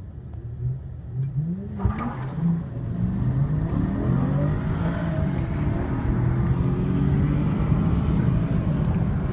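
BMW 750Li's V8 launching hard from a standstill, heard from inside the cabin: the revs jump about two seconds in, then the engine pitch climbs again and again through the gear changes under full acceleration.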